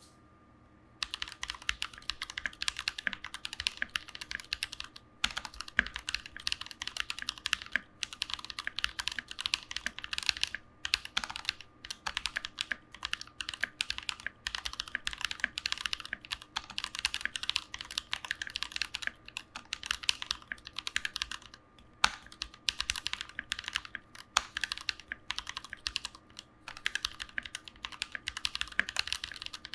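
Typing on a mechanical keyboard fitted with Tecsee Kingfisher PME linear switches, lubed with Krytox 205g0. Rapid runs of keystrokes start about a second in and break off briefly a few times.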